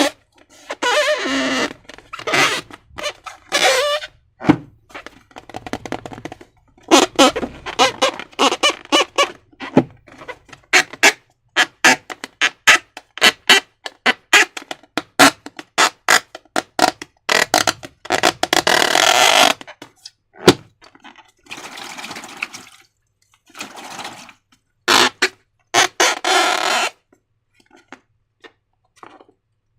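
Slime being squished and worked by hand, a run of wet squelching clicks and pops that comes in bursts. A single sharp, loud snap comes about twenty seconds in.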